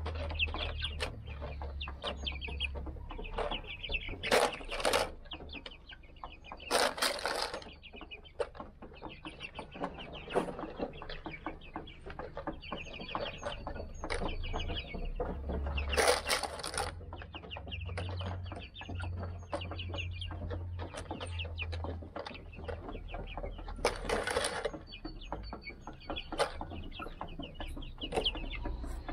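A flock of young Silver Laced Wyandotte chickens peeping and clucking almost continuously, with many small taps and a few short, louder bursts now and then.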